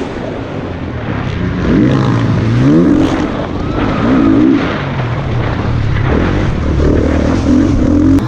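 Motocross bike engines revving on the track, their pitch rising and falling again and again as the riders open and close the throttle.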